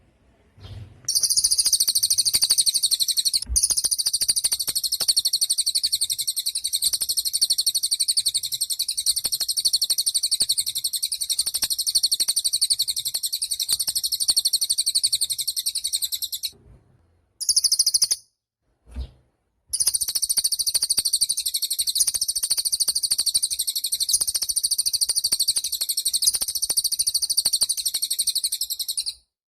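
Cililin songbird singing a long, rapid, high-pitched trill. It breaks off twice just past the middle, with one short burst between the pauses.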